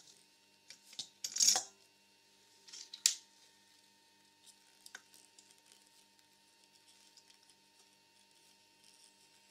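A metal disc handled and set onto a spindle in a stainless steel bowl: a rattling clatter about a second and a half in, a sharp metallic clink at about three seconds, then a few light ticks as it is fitted and pressed down.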